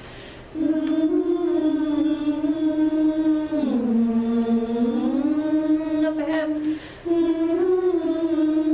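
A chorus singing a vocal warm-up in unison, lightly and without weight. The voices hold sustained notes, slide smoothly down to a lower pitch partway through, then slide back up. There is a quick group breath about six and a half seconds in.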